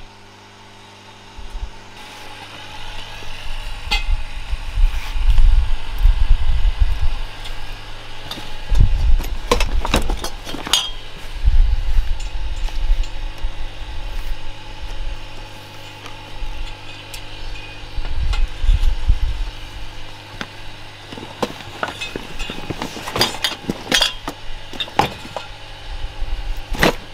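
Leather sheaths and belt gear being handled close up: rubbing with light metal clinks and several sharp clicks, clustered near the end. Heavy low rumbling thumps come in three spells and are the loudest sound, over a steady low hum.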